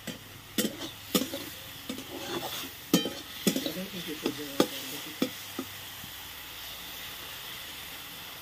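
Mushrooms frying in oil in a wok, sizzling steadily while a spatula scrapes and knocks against the pan about twice a second; the stirring stops about five and a half seconds in, leaving only the sizzle.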